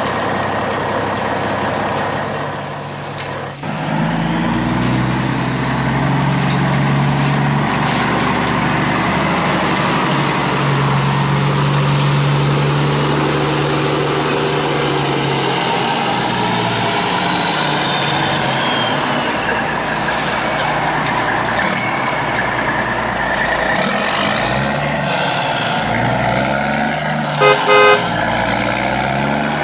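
Heavy truck engine sound effect running steadily, with two short horn toots near the end.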